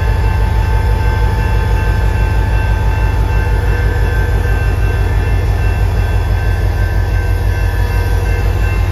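CSX diesel locomotive 8052 passing slowly at close range, its engine a loud steady rumble with an even pulse, with several steady high tones above it.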